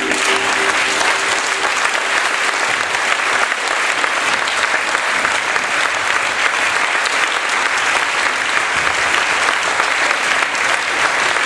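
Audience applauding steadily, a dense clapping that fills the hall, with the last held chord of the music fading out in the first second or so.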